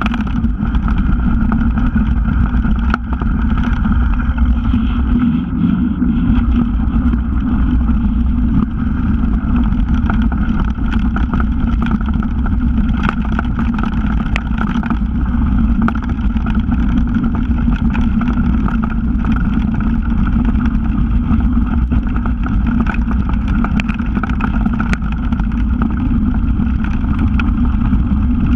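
Steady wind rush over a mountain bike's handlebar camera during a fast descent on a dirt trail, with the bike rattling and knocking over bumps in the ground throughout.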